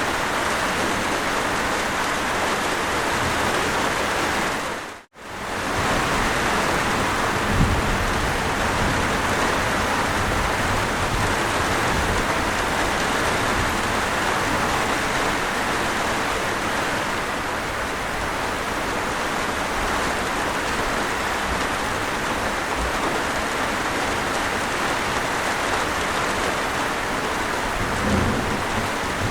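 Steady, dense rainfall. It cuts out briefly about five seconds in, then fades back in. Two brief low thumps come through, one about eight seconds in and one near the end.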